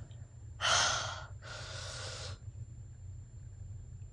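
A woman taking two heavy, noisy breaths about a second in, the first louder than the second: hard breathing against the burn of ghost pepper noodles.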